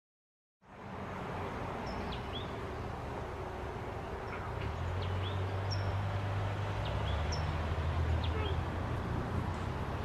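Outdoor parking-lot ambience: small birds chirping in short repeated calls over a steady background wash, with a low engine rumble growing louder from about halfway through.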